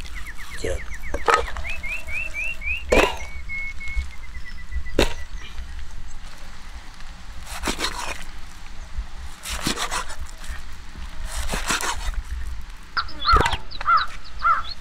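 A large knife chopping giant trevally chunks on a wooden chopping block: about a dozen sharp, irregular knocks of the blade striking the wood, some close together in pairs. Birds chirp in the background, with quick runs of notes at the start and again near the end.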